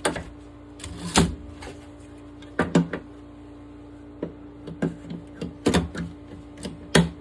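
Olympia SM7 manual typewriter keys struck one at a time at an uneven pace, a series of sharp clacks, with a steady low hum underneath.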